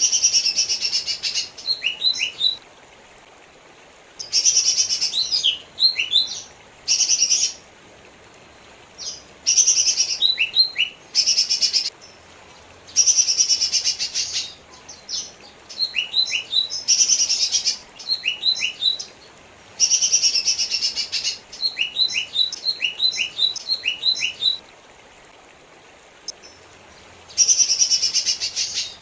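Lesser green leafbird (cucak ijo mini) singing: phrases a second or two long of rapid, dense chattering, alternating with quick sharp whistled notes, with short pauses between phrases.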